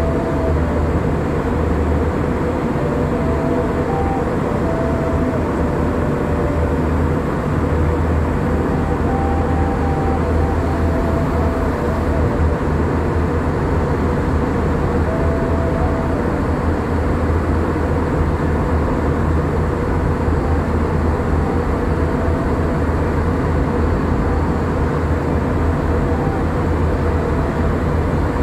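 Steady in-flight cabin noise of an Airbus A321-211 jet airliner heard from a passenger seat: the even rush of engines and airflow, with a low hum and a faint steady tone above it.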